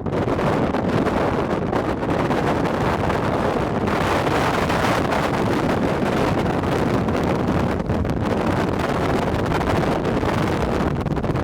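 Strong wind buffeting the microphone: a loud, continuous low rumble that swells into a stronger, hissier gust a few seconds in.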